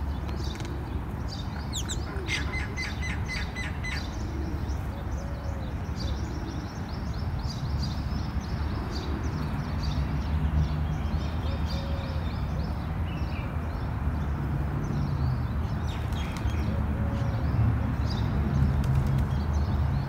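Small birds chirping over and over, with a quick run of chirps about two seconds in, over a steady low rumble.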